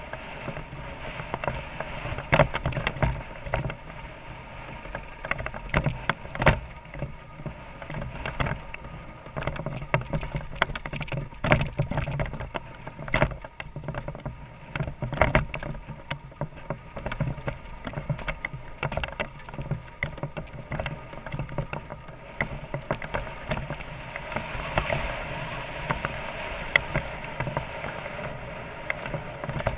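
BMW F650GS Dakar's single-cylinder engine running steadily at low speed off-road, with frequent irregular knocks and rattles as the bike jolts over a rough track.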